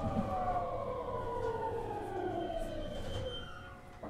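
JR West 223 series 2000 subseries train's Mitsubishi IGBT VVVF inverter and traction motors whining in several tones that fall steadily in pitch as the train slows, over the low rumble of the running gear. The sound fades toward the end.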